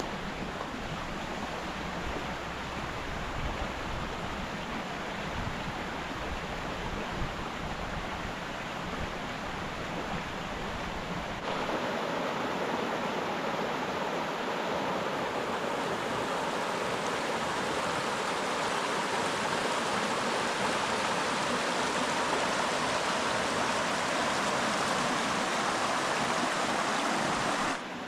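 Rushing water of a rain-swollen mountain stream, steady, with a low rumble under it at first. About halfway through it changes suddenly to a louder, brighter rush, which cuts off just before the end.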